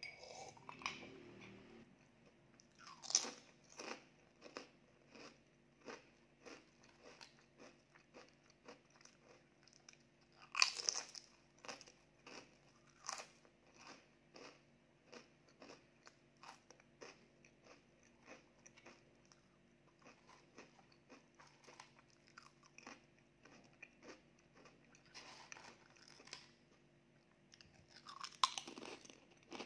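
Close-up crunching of purple ube sweet potato chips being bitten and chewed: a steady run of crisp crunches, with a few louder bites about 3, 11 and 13 seconds in and again near the end.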